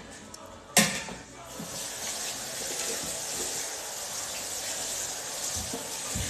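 A sharp knock about a second in, then water running steadily from a tap.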